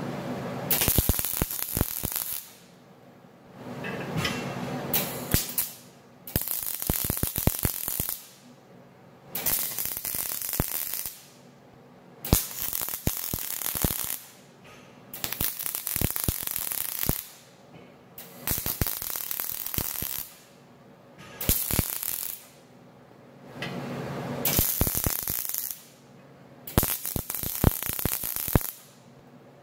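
MIG welder crackling in short bursts of one to two seconds, about a dozen welds with brief pauses between, as steel bar stock is welded into a combine's keystock grate.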